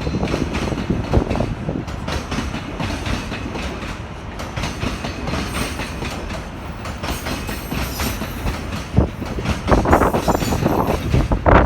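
Freight train passing, its wagon wheels running over the rails with a steady rumble and scattered knocks.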